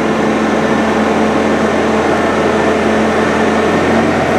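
Skid steer engine running steadily at raised revs while the hydraulics tilt the bucket in a dump, a test that the freshly attached bucket is locked onto the quick-attach.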